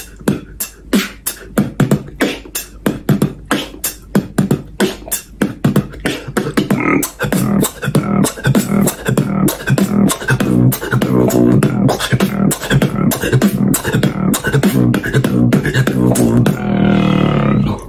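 Human beatboxing: a fast run of vocal kick, snare and click sounds, then from about seven seconds in a sustained deep buzzing vocal bass, the bass drop, held under the beat until it cuts off abruptly near the end.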